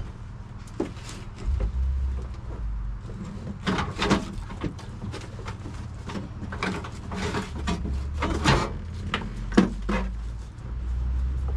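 Irregular knocks, clicks and clatter from hand work on the car, with a low rumble that comes and goes. No steady power-tool whine is heard.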